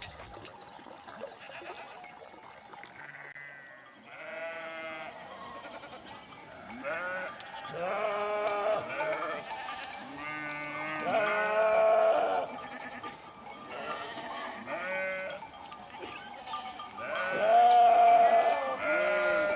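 A flock of sheep bleating, with many wavering calls overlapping one another and the loudest call coming near the end.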